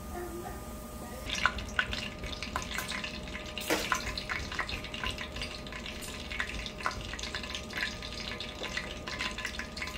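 Hot cooking oil in a nonstick wok on a gas burner starts crackling and spitting about a second in. Sharp pops continue irregularly, as oil meets water left in the pan.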